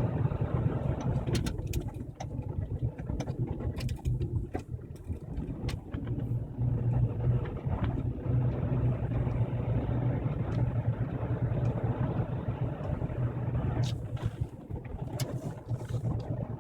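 A car running with a steady low drone, with scattered sharp clicks that come thickest in the first six seconds and again near the end. This is the noise the owner reports coming from the front passenger side.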